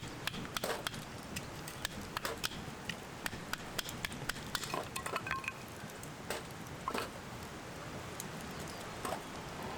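Campfire crackling, with many irregular sharp pops and snaps, and a brief ringing metallic clink about five seconds in.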